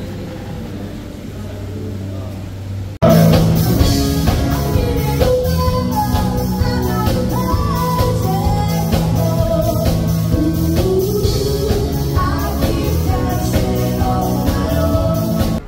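Live rock band: a woman singing into a microphone over electric guitars and a drum kit with a steady beat. It starts suddenly about three seconds in, after a low steady hum.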